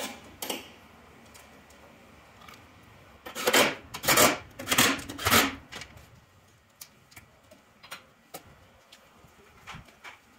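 Hand work in a car's engine bay: sharp clicks at the start, then a burst of four loud rattling, scraping noises of plastic and metal parts being handled and fitted, followed by a few light ticks.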